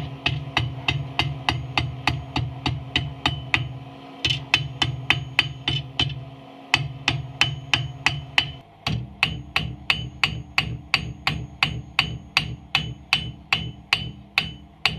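Hand hammer forging a red-hot katana blade on a chain-wrapped steel anvil: steady blows about four a second, each with a short metallic ring. The hammering breaks off briefly about four, six and a half, and nine seconds in.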